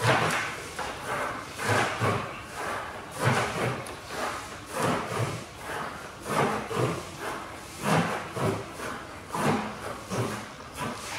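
Tie-down rope swishing and rubbing as it is pulled through loop after loop while being worked into a chain sinnet, in a rough rhythm of about one pull every second and a half.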